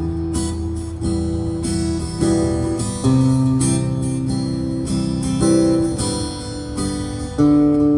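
Fender Hellcat acoustic guitar being strummed, moving through chords every second or two.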